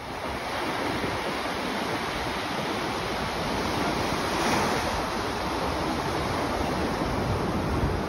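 Small ocean waves breaking and washing up a sandy beach in a steady rush of surf, swelling about halfway through as a wave runs in. Some wind buffets the microphone.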